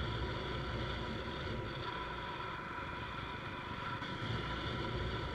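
Motorcycle running at a steady cruising speed: an even engine drone over a low rumble, without change in pitch or level.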